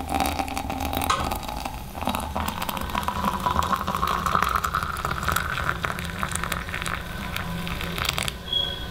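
Hot water poured from a gooseneck kettle into an Aeropress chamber, a steady trickling splash whose pitch rises as the chamber fills, stopping near the end.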